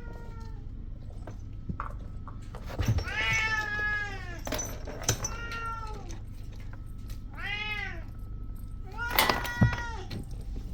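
A kitten meowing four times, each meow rising and then falling in pitch; the first is the longest. Faint clicks and taps can be heard between the calls.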